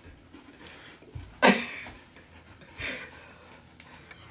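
A person chugging a bottle of carbonated water: quiet stretches of drinking, with one short loud throaty gulp about one and a half seconds in and a softer one near three seconds.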